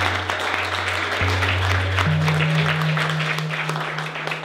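A small audience applauding, over background music with long held bass notes that step up in pitch about two seconds in.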